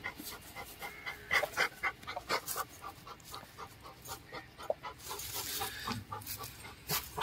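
American Bully dog panting hard and fast, about four quick breaths a second.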